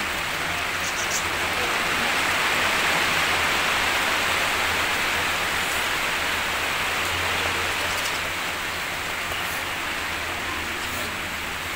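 Heavy rain falling steadily, an even hiss, with a low steady hum beneath it.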